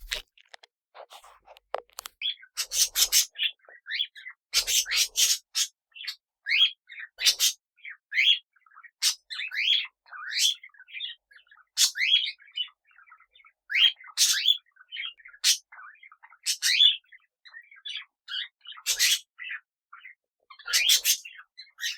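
Small pet parrots chirping and chattering: a busy run of short, often rising chirps broken by a few louder, scratchy bursts.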